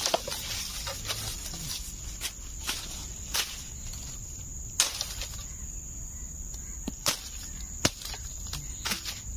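Irregular sharp clicks and rustles of a machete swung and striking the dry bamboo leaves and stems around a bamboo shoot, clearing it, with the loudest snaps about 5 and 8 seconds in. Crickets or other insects drone steadily and high-pitched behind it.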